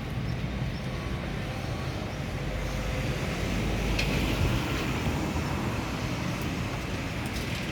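Steady city road-traffic noise, a low rumble and rush of passing vehicles that grows a little louder about four seconds in.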